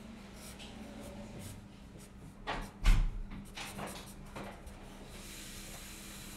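Drawing strokes on paper, a quiet scratching and rubbing, with a sharp knock near three seconds in and a faint steady hiss from about five seconds on.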